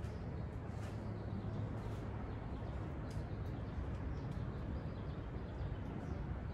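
Steady low background hum of a shop building, with a few faint ticks.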